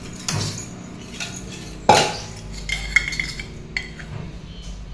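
Stainless-steel kitchen container and lid being handled, clinking and knocking. A sharp metallic clank about two seconds in is the loudest, followed by a few lighter clinks with a brief ring.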